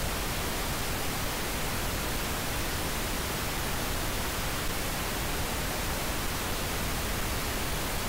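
Steady, even hiss of noise like static, spread over all pitches with no tone or rhythm in it.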